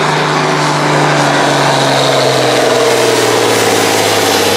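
International Harvester 1466 Turbo pulling tractor's turbocharged diesel engine running hard under load while it drags a pulling sled. Its note falls steadily in pitch as the pull goes on.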